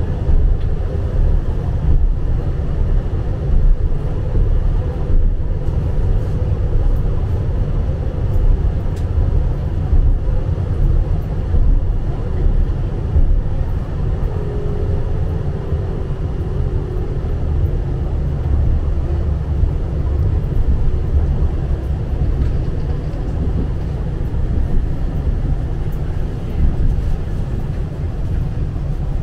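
Tram running along the line, heard from inside the passenger car: a steady, heavy rumble of wheels on rails and running gear. A faint falling whine comes in about halfway through.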